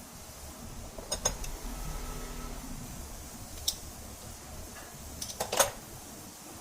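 Metal parts and tools clinking as they are handled: a quick cluster of clinks about a second in, a single clink near the middle, and a louder cluster near the end.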